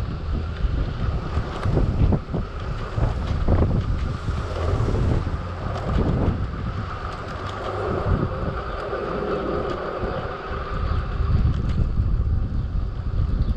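Wind buffeting the microphone on a moving Lime electric scooter, with a low rumble from the ride and a steady whine that fits the scooter's motor.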